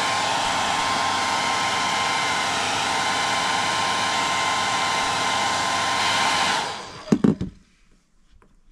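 Handheld hair dryer running, a steady rushing blow with a steady whine, switched off about six and a half seconds in and winding down. A couple of knocks follow.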